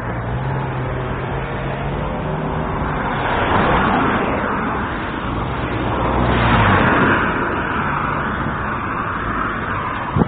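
Street traffic: a steady low engine hum with cars passing, growing louder twice, once about a third of the way through and again past the middle.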